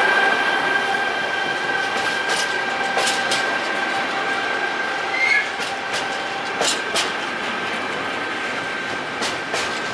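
Container freight train's wagons rolling past close by on a curve: steady rumble of the wheels with sharp clicks over the rail joints and a steady high whine that fades out about seven seconds in.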